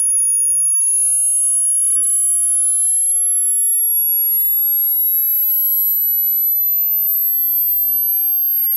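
Hearing-test sine tone: a single very high-pitched pure tone, steady in loudness, gliding slowly upward in pitch.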